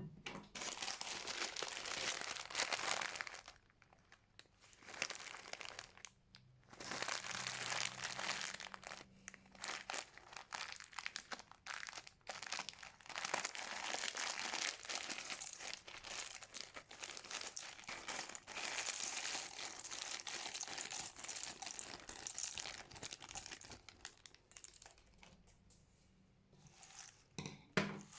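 Hands working a big fluffy slime, the slime giving a dense crinkly crackle in long bouts with short pauses between them.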